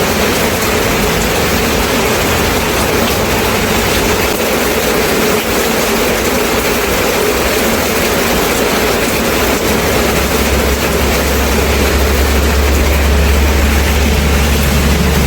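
Steady rain, with a low rumble underneath that grows louder about ten seconds in.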